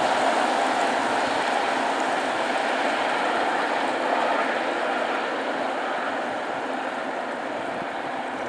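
Freight train hauled by a 6Dg diesel locomotive running along the line: a steady rumbling noise of engine and rolling wagons that slowly grows quieter.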